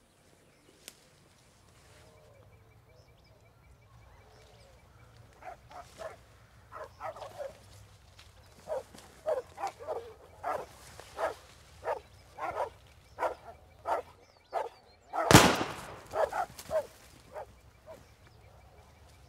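A dog barking repeatedly, about two barks a second, starting faintly about five seconds in and growing louder, with one much louder, sharper burst near the end.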